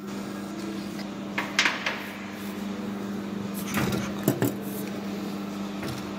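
Loose steel bolts clinking and rattling inside a metal electric-motor cover as it is handled, in two bursts, about one and a half seconds in and again around four seconds, over a steady low hum.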